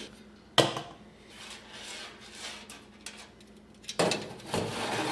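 Metal clatter of a steel hard drive cage in a sheet-steel server case. There is one sharp click about half a second in, then near the end a spell of rattling and scraping as the cage is grabbed and shaken to test that its screwed-on brackets hold.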